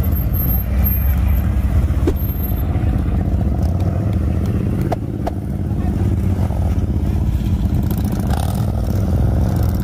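Several big touring and cruiser motorcycles idling and creeping at walking pace, their engines a steady low rumble, with a couple of brief clicks.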